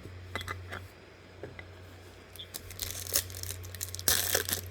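Trading-card pack wrapper being handled and torn open, crinkling and tearing. A few light clicks come first, and the rustle grows denser and louder after about three seconds.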